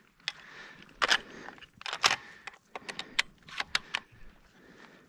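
A quick, irregular series of sharp clicks and rattles, with quieter rustling between them.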